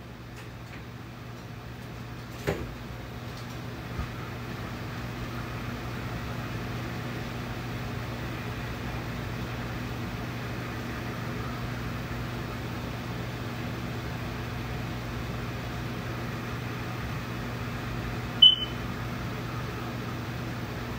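Room air conditioner running: a steady hum and whoosh with a low electrical drone, growing a little louder over the first few seconds. There are two light clicks in the first few seconds, and one short, sharp high-pitched blip about two and a half seconds before the end.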